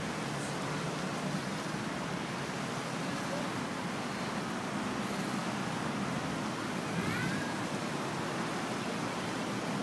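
Steady wash of road traffic noise from a busy city junction, even throughout, with a brief faint high chirp about seven seconds in.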